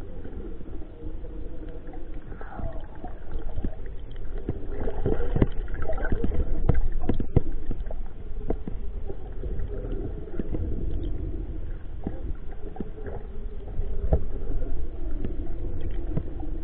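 Muffled water sounds picked up by a camera underwater: a steady low sloshing and gurgling with scattered clicks and knocks.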